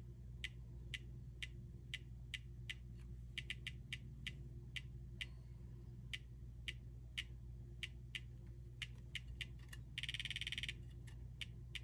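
Polarstar Jack HPA engine's solenoid clicking faintly as the trigger is pulled: single clicks every half second or so, then a short full-auto burst of very rapid clicks about ten seconds in and a quicker run of clicks near the end. The trigger contact is being tested for firing.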